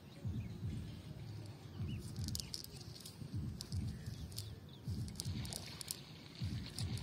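Light rustling and patting as a cast net is handled and lifted on grass, over repeated low, irregular rumbles, with a few bird chirps.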